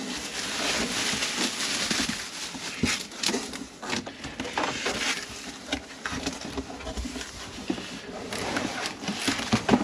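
Cardboard box and packing material rustling and scraping as a new microwave is unpacked, with scattered sharp knocks and clicks.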